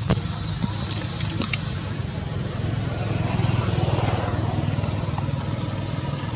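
A steady, low engine hum, like a motor vehicle running nearby, with a few faint clicks about a second in.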